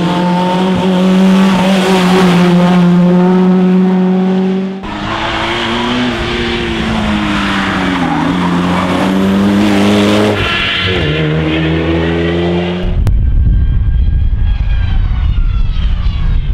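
Rally car engines running hard at high revs on a stage, with tyres skidding. The pitch holds high for the first few seconds, then dips and rises again with lifts and gear changes, and after an abrupt change near the end a deeper engine pulls up through the revs.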